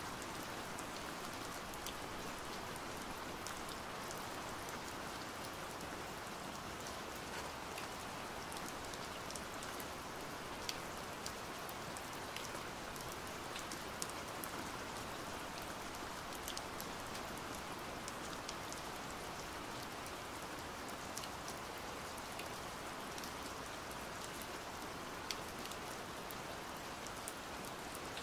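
Steady rain: an even hiss with many scattered, sharp drop ticks.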